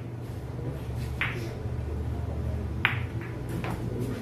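Pool balls clicking against each other as they roll out after the break: two sharp clacks about a second and a half apart, then a couple of fainter ones near the end.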